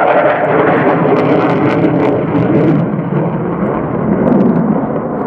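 Loud, steady jet noise from an F-35A's single Pratt & Whitney F135 afterburning turbofan, with the afterburner lit as the fighter pulls a high-g turn. A few sharp crackles come through about one to three seconds in.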